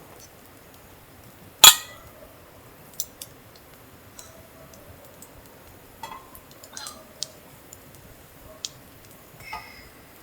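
Dishes and utensils being handled: one sharp, loud clink about two seconds in, then scattered lighter clicks and taps.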